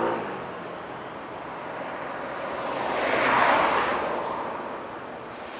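A vehicle passing: a rushing noise that swells and fades, loudest about three and a half seconds in.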